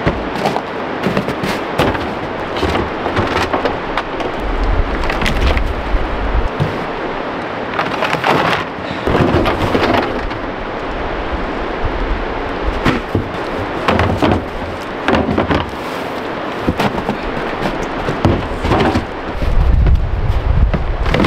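Wind rumbling on the microphone, mixed with knocks and crinkling rustles as a plastic barrel, plastic sap buckets and a plastic bag are handled.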